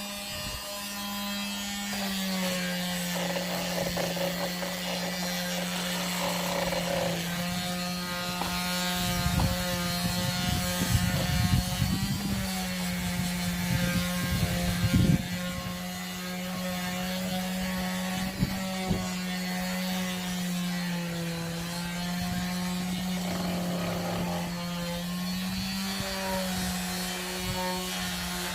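Electric disc sander running against wood, a steady motor hum whose pitch dips and recovers as it is pressed into the work, with scraping and several knocks in the middle stretch.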